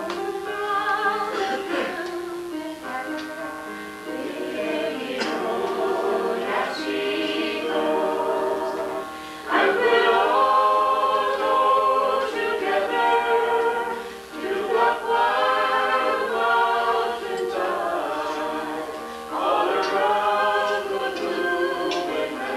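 A small group of voices singing a song together in phrases, with short breaks between lines.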